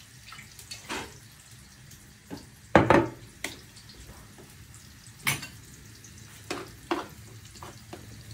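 Food frying in a pan, with a utensil knocking and clinking against the pan about ten times as it is stirred; the loudest knock comes about three seconds in.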